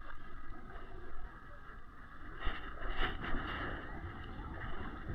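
Low, irregular water and wind noise around a kayak on open water, with a few louder sloshes in the middle.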